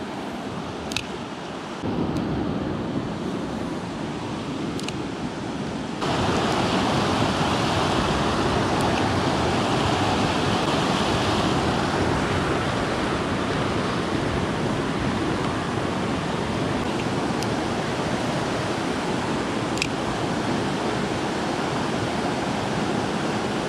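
A small mountain creek rushing over rocks and little cascades: a steady wash of water that jumps louder suddenly about two seconds in and again about six seconds in.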